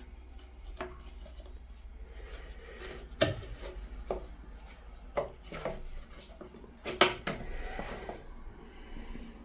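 Hard plastic parts of a bathroom exhaust fan being handled and rubbed while it is taken apart for cleaning: scattered knocks and clicks, the loudest about 3 and 7 seconds in, with stretches of rubbing between them.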